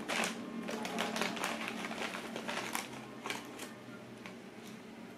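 Lay's potato chip bag crinkling and crackling as it is handled and reached into, a dense run of sharp crackles that thins out after about three seconds, over a faint steady low hum.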